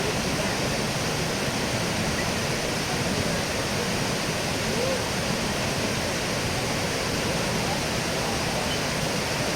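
Steady, even rush of water falling over the Kravica waterfalls, with faint voices of people in the background.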